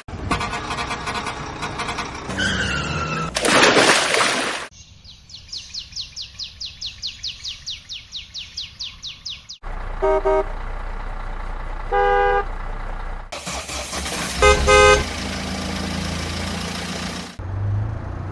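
A string of toy-vehicle cartoon sound effects. Two loud noisy bursts come first, then a fast ratcheting clicking for about five seconds, like a winch being wound. After that an engine hums low and steadily while a vehicle horn toots several times.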